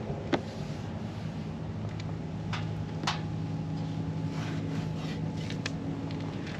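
A low steady hum with a few sharp clicks and taps from a hand handling the car's rear bodywork and diffuser, the loudest about a third of a second in.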